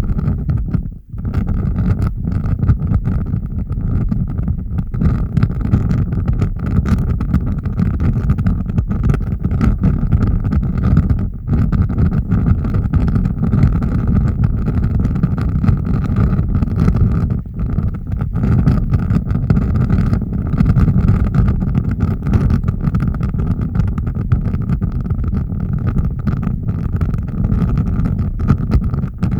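Large fire burning with a deep, steady rumble and constant crackling, with a brief drop in level about a second in.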